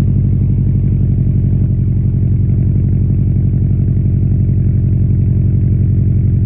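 2013 Subaru Impreza WRX's turbocharged 2.5-litre flat-four engine idling, low-pitched and steady.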